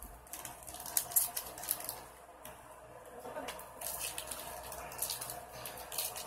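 Foil trading-card pack wrapper crinkling and rustling as it is handled and torn open, in two spells of quick, irregular crackles.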